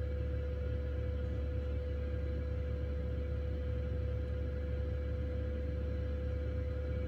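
Diesel night heater mounted under the van, running and heard from inside: a steady low rumble with a constant hum over it.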